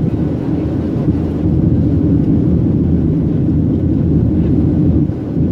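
Steady low rumble of jet engines and rushing air heard inside an airliner cabin, climbing out shortly after takeoff.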